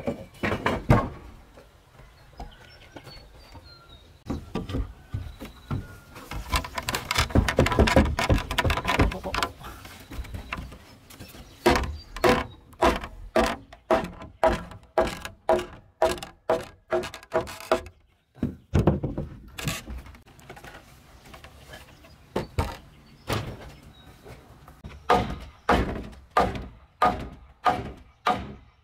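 Hand carpentry on timber beams: a stretch of rapid rasping strokes on wood, then runs of sharp hammer blows about two a second, each with a short ring.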